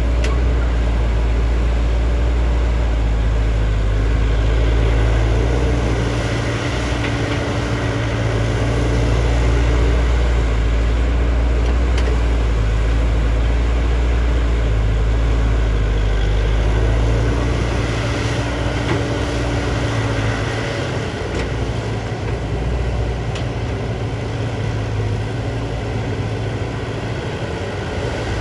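JCB JS205 excavator's diesel engine running steadily with a deep, low hum. The low rumble dips briefly about six seconds in and eases off in the last third.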